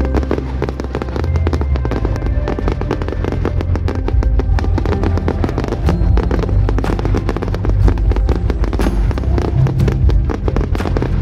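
Aerial fireworks bursting and crackling in rapid succession over loud music with held bass notes.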